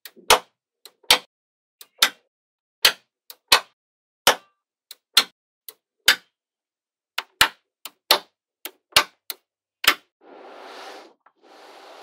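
Small magnetic balls clicking sharply as they snap into place, about twenty single clicks at an irregular pace. Near the end come two short spells of softer rattling.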